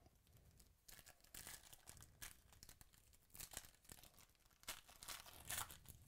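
Foil trading-card pack wrappers being torn open and crinkled in the hands: a quiet run of short rustles and tearing strokes, loudest near the end.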